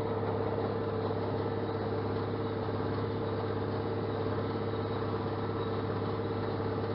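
John Deere 4600 compact utility tractor's diesel engine running steadily, pulling a hay rake, with an even, unchanging hum.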